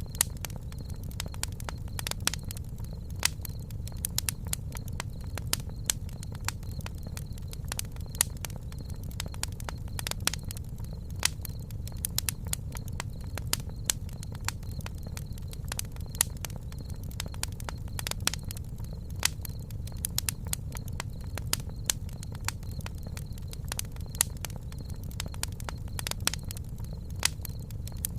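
Campfire burning: a steady low rumble of the flames with frequent irregular sharp crackles and pops from the burning wood.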